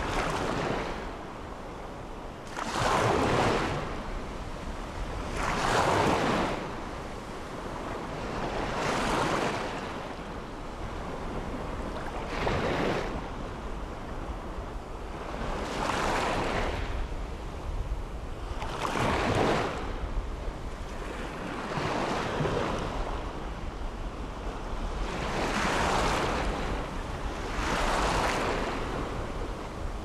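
Small ocean waves breaking and washing up on a sandy shore, each wave swelling and fading away, one about every three seconds.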